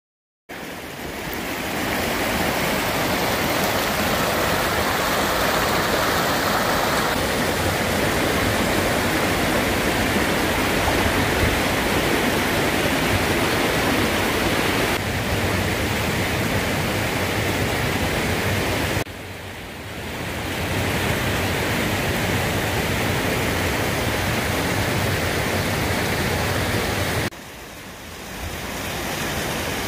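Steady rushing of running water in an iced-over mountain gorge, an even hiss with no distinct splashes, dipping briefly twice, about two-thirds of the way in and near the end.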